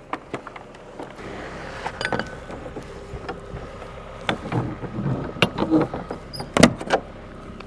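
Aluminium dry kiln doors being swung shut and latched: a series of metal clicks and knocks from the panels, handle and latch, the loudest near the end.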